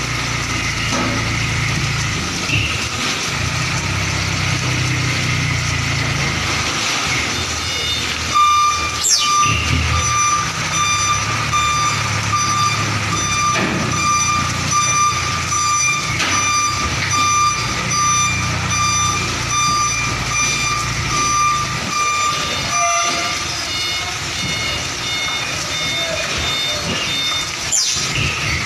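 Hino 500 truck's diesel engine running at low speed while its reversing alarm sounds a repeating pulsed electronic tone for much of the time. There are two sharp falling squeals, about nine seconds in and near the end.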